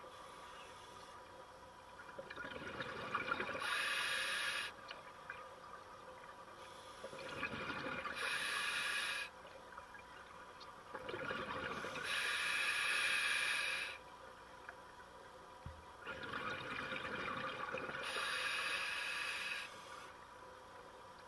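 Scuba diver breathing through an open-circuit regulator underwater: four breaths about five seconds apart, each a rising hiss followed by a louder rush of exhaled bubbles. The slow, even rhythm of about eleven to twelve breaths a minute is that of a relaxed, unstressed diver.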